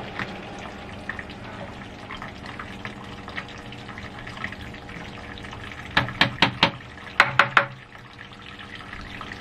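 Wort trickling and splashing steadily as it is recirculated through the mash in a homebrew mash tun. About six seconds in come sharp knocks, four quick ones and then three more, as a copper pipe is handled at the tun's rim.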